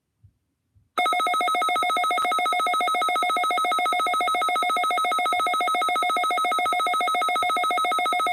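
Electronic alert tone from a weather radio: a loud, rapidly pulsing, ringing buzz of several pitches that starts about a second in, holds steady for about seven seconds, and cuts off abruptly at the end.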